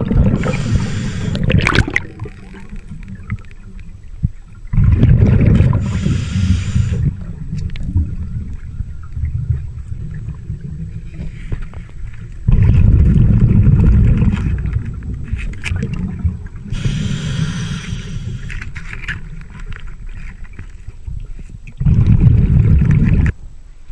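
Scuba diver breathing underwater through a regulator: a hissing inhale now and then, and exhaled bubbles rumbling past in loud bursts every few seconds, over a murky underwater background.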